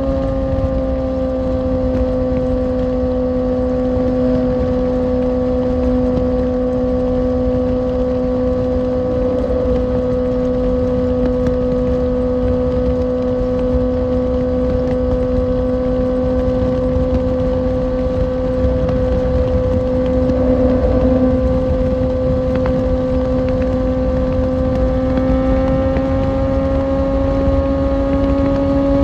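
Kawasaki Ninja ZX-6R's inline-four engine cruising at steady highway speed, its pitch holding nearly constant, easing slightly just after the start and rising a little near the end. Low wind and road rush lies underneath.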